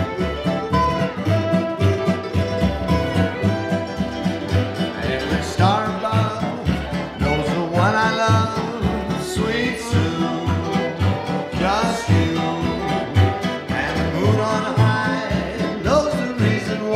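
Jug band playing a swing tune live: fiddle, mandolin, acoustic guitar and dobro, with a jug blown for the bass line.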